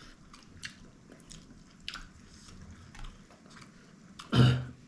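Close-up chewing and small wet mouth clicks of someone eating. Near the end comes one louder, short voice-like sound.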